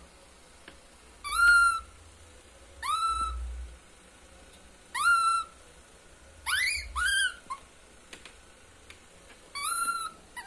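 A baby monkey giving repeated high-pitched distress calls, each short and rising then levelling off, about six or seven of them a second or two apart, with two in quick succession near the middle.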